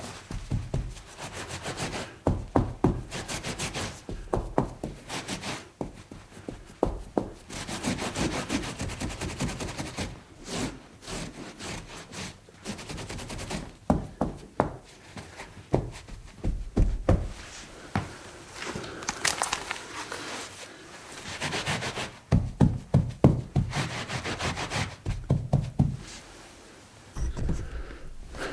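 Cloth or sponge rubbing and scrubbing a stain on a hard surface in repeated back-and-forth strokes, with scraping and light knocks along the way.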